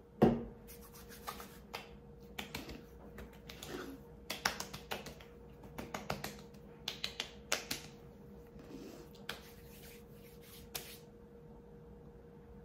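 Hands patting a lemon extract toner onto facial skin: a string of light, irregular slaps of palms and fingertips on the cheeks, thickest in the middle and thinning out near the end.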